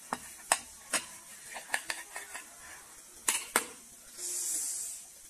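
Metal table knife clinking and scraping against a ceramic plate as it cuts through French toast, with a string of sharp clicks. It ends with a brief high hiss about four seconds in.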